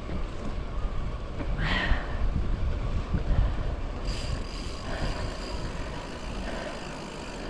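Wind rumbling on an action camera's microphone while riding a bicycle along a paved path, with tyre noise and road traffic passing alongside.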